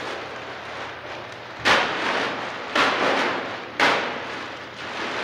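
A heavy plastic trash bag full of clay slammed down onto a concrete floor three times, about a second apart, each a sharp thud with a short ringing tail, with the plastic rustling in between.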